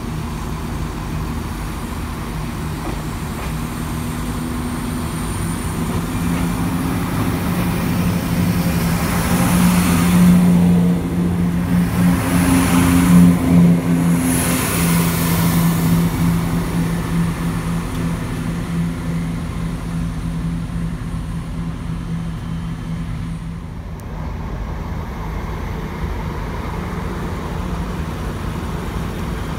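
CrossCountry Class 170 Turbostar diesel multiple unit running in along the platform: its diesel engines hold a steady low drone, and rushing wheel-on-rail noise swells as the carriages pass close by, loudest about ten to fifteen seconds in. After an abrupt change a few seconds before the end, a steadier, quieter train hum carries on.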